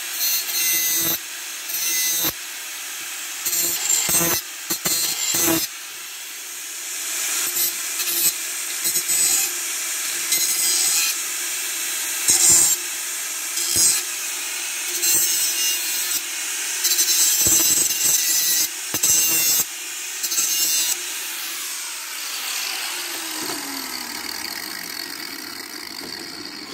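Power grinder running steadily and grinding a metal pipe in repeated short passes, each contact bringing a burst of harsh high grinding noise. Near the end the tool is let off and winds down, its pitch falling.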